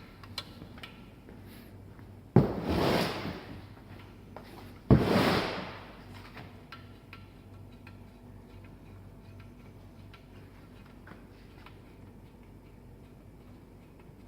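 Two loud clattering knocks about two and a half seconds apart, each trailing off in a short rattle, from hands-on work on a bicycle's chain and chain tensioner. Faint small clicks of tools follow.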